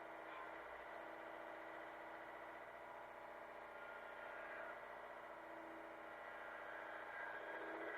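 Hitachi mini excavator's engine running steadily, a fairly quiet, even drone with no change in pitch.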